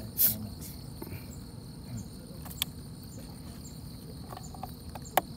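Wet gill net being pulled by hand out of the water, with a short splash near the start and a couple of sharp drips or knocks later. An insect chirps faintly, about three times a second.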